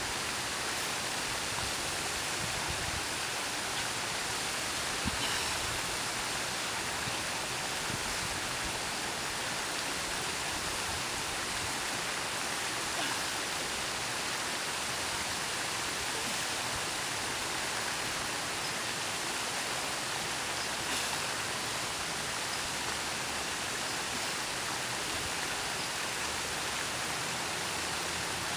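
Steady, even rushing of water from a small waterfall spilling over rocks into a pond.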